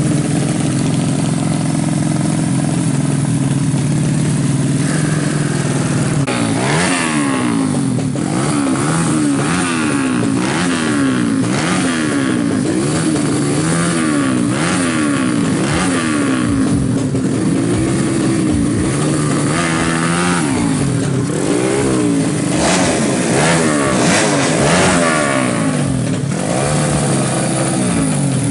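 Honda Astrea Grand drag bike's single-cylinder four-stroke engine, fitted with a racing exhaust. It idles steadily for about six seconds, then is revved in quick repeated blips, its pitch rising and falling over and over.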